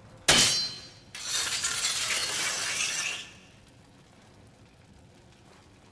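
Blade scratching across a metal forehead protector: a sharp metallic scrape, then a longer grating scratch lasting about two seconds that stops suddenly.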